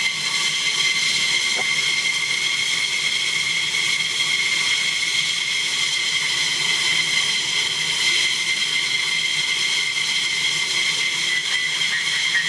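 F-15E Strike Eagle's twin jet engines idling steadily: a high-pitched turbine whine over a constant rush of exhaust noise.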